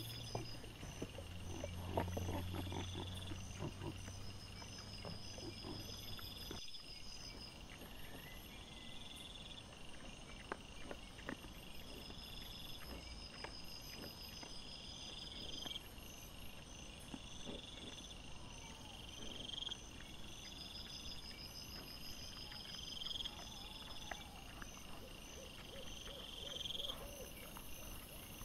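Wild boar sow and piglets feeding: scattered short clicks and rustles, with a few brief grunts near the end. Night insects chirp over it in regular repeated pulses. A low hum stops about a quarter of the way in.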